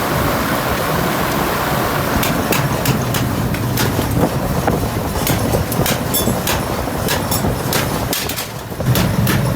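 Workshop machinery running steadily, with many irregular sharp metallic knocks over it. The machine noise drops briefly about eight and a half seconds in, then resumes.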